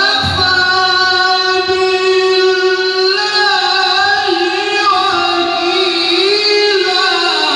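A single voice chanting Qur'an recitation (tilawah), holding one long melismatic note with slow ornamental rises and dips in pitch.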